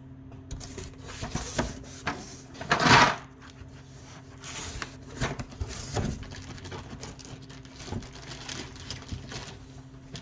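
Tools being handled and packed into a tool bag: a run of small clicks and knocks with rustling, loudest about three seconds in.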